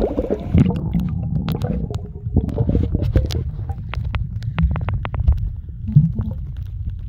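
Muffled underwater rumble of a camera held submerged, water moving against its housing, with scattered faint clicks and crackles.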